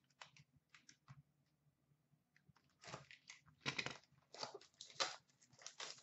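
Cellophane shrink wrap on a sealed hockey card box crinkling as it is handled and pulled open. A few light handling clicks come first, then a run of short, scratchy crinkles from about three seconds in.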